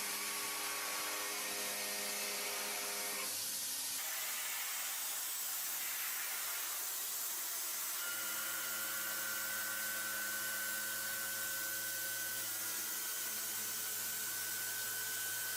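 CNC machining center running: a steady hiss with a constant hum and whine of several steady tones, which change character a few seconds in and again about halfway through.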